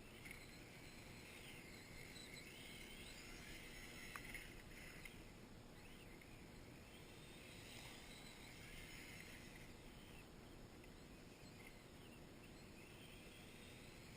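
Faint whine of the Kyosho Blizzard EV's electric motor, a tracked RC snow vehicle, rising and falling in pitch several times as the throttle changes, with one sharp click about four seconds in.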